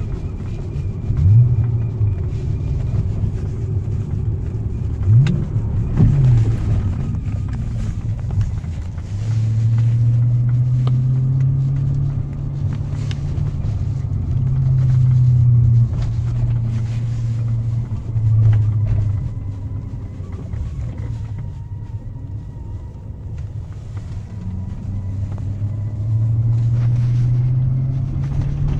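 BMW E60 545i's 4.4-litre V8 engine running with the revs rising and falling: two short blips in the first six seconds, then longer stretches held at higher revs that step down and rise again.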